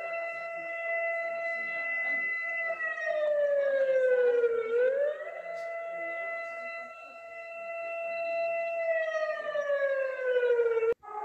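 Emergency-alert siren: a steady tone with strong overtones that slides down in pitch, jumps back up and holds, then slides down again. It cuts off near the end, where a different, lower siren tone begins.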